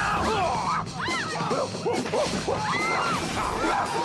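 Background music with many quick bending notes.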